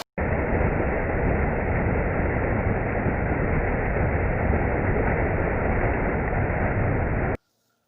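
Steady rushing noise, loud and even, that cuts in abruptly and stops abruptly about seven seconds later.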